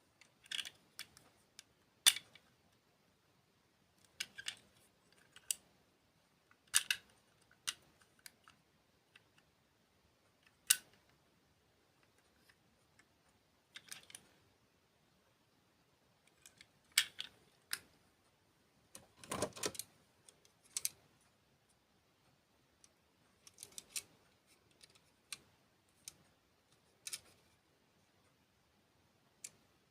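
Close-miked eating of candy and desserts: sharp, crisp clicks and crunches scattered a second or few apart, with one longer crunch about two-thirds of the way in.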